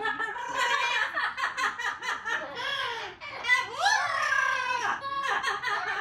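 Amazon parrots vocalizing in a rapid stream of pitched, chattering calls, with one rising-then-falling whistled glide about four seconds in.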